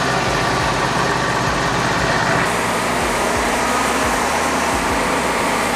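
Wood-Mizer LT40 Wide band sawmill's engine running steadily, its sound shifting slightly about two and a half seconds in.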